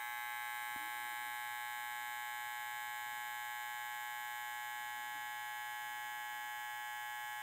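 StyleCraft Saber II hair clipper running unloaded at full speed, a steady, even, high-pitched buzz with many overtones. Its blades are turning at about 7,190 RPM, right on its rated 7,200.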